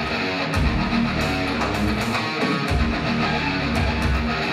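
Guitar-led music with a steady, pulsing bass beat, played loudly.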